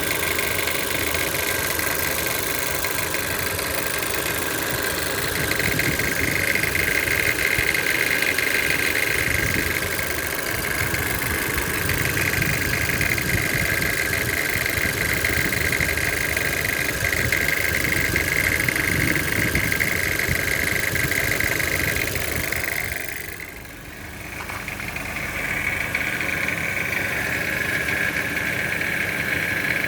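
Toyota C-HR's 1.2-litre turbocharged engine running with a rattling noise, the fault the owner is showing. The sound is steady with a constant high whine, and it drops briefly about two-thirds of the way through before returning.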